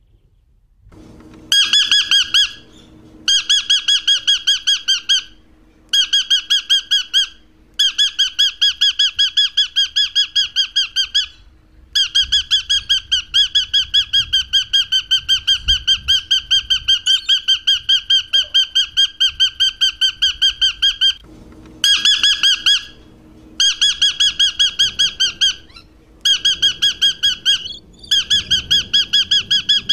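Rainbow lorikeet giving rapid, evenly spaced shrill screeching calls in runs of one to several seconds with short breaks, starting about a second and a half in.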